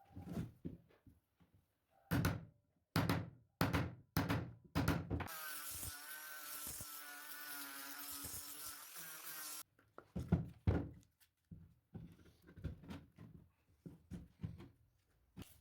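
Wooden knocks and thumps as timber is handled or struck. Then a small power-tool motor runs steadily for about four seconds with a slightly wavering whine, followed by more scattered knocks.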